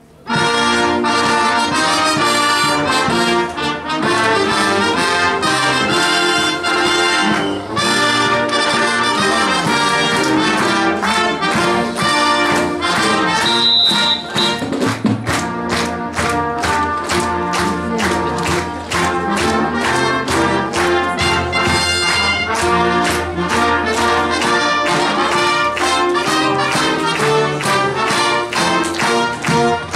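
Marching band playing loudly with full brass (trumpets, trombones, saxophones, sousaphones) and marching drums, coming in abruptly right at the start. From about halfway the drums keep a steady march beat under the brass.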